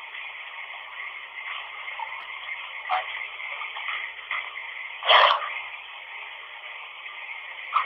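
Steady hiss of running water, thin and tinny as if heard through a telephone or small radio, with a few brief louder blips; the loudest comes about five seconds in.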